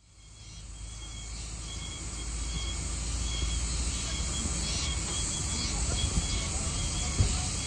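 Cicadas singing energetically, a dense shrill hiss with a ringing note that pulses on and off, fading in over the first second. They seem to be Oshima cicadas (Meimuna oshimensis), a species found only around Okinawa.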